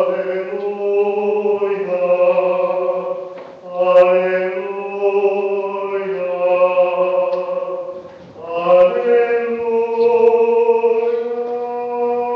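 Slow plainchant sung by male voices: long held notes that step from pitch to pitch, in three long phrases with short breaks between them.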